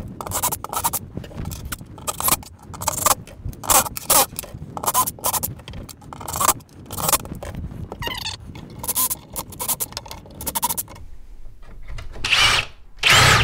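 Cordless drill with a countersink bit run in short bursts, drilling pilot holes into wood, with scraping and clattering between them. Near the end come a couple of louder trigger pulls with the motor whining.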